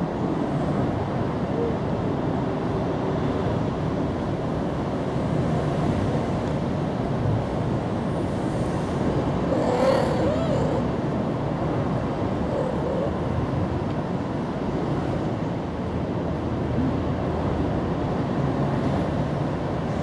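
Steady low background rumble. A short pitched sound comes about halfway through.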